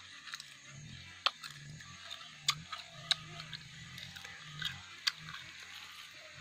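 Close mouth sounds of someone chewing crunchy grilled insects: a few scattered sharp crunches over a faint, low hum.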